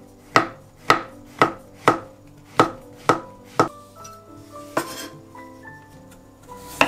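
Kitchen knife slicing shiitake mushrooms on a wooden cutting board: seven sharp chops at about two a second, then a pause and two more further apart near the end. Soft background music plays underneath.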